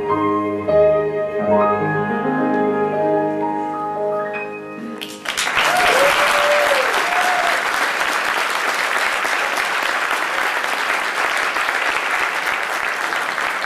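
The last held notes of a song's keyboard accompaniment. About five seconds in, the audience breaks into steady applause, with a brief whoop soon after.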